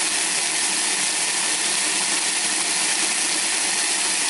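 High-speed countertop blender motor running steadily at full speed, grinding dry roasted yellow split peas into flour.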